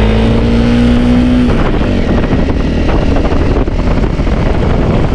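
Trail motorcycle engine running under load as it climbs a steep, rough dirt track. The engine note holds steady and rises slightly for about the first second and a half, then turns rough and broken, with many small knocks.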